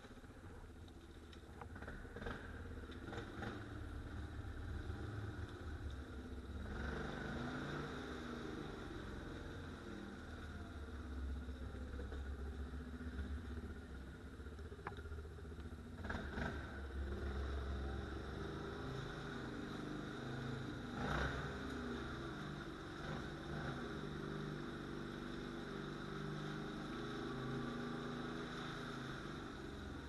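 ATV engine running at low speed, its pitch rising and falling with the throttle, inside a concrete culvert. A few sharp knocks come through, the loudest about two-thirds of the way in.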